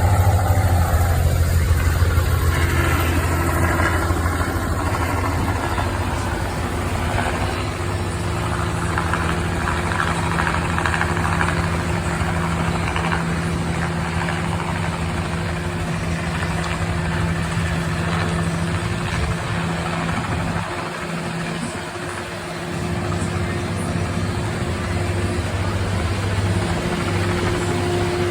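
Helicopter running with a steady low engine-and-rotor drone that eases off briefly about three-quarters of the way through, then returns.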